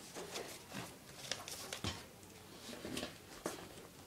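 Faint rustling and scattered light clicks of a paper plane and elastic band being handled, with two slightly sharper knocks.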